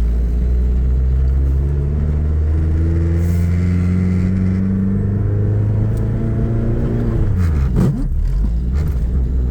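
1990 Eagle Talon's turbocharged four-cylinder engine running under way, its note holding fairly steady. About eight seconds in, the revs dip sharply and climb straight back, which fits the driver's icy foot slipping off the clutch.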